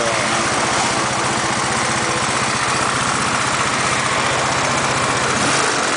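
Small single-cylinder scooter engine idling steadily at the exhaust outlet with an even, rapid pulsing.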